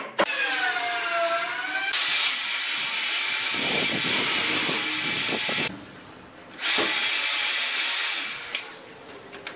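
Corded electric drill boring holes into the wooden head jamb of a door frame. The motor whines with a wavering pitch, then gives a loud rough grinding for about four seconds as the bit cuts into the wood. After a brief stop it drills a second hole for about a second and a half, then winds down.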